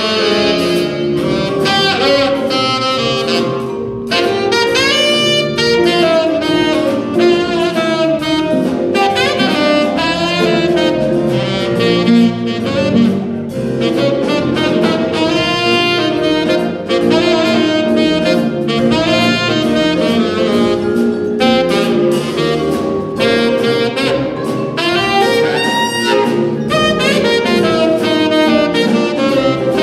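Jazz band playing a blues, with a saxophone soloing in quick rising and falling runs over the band's backing.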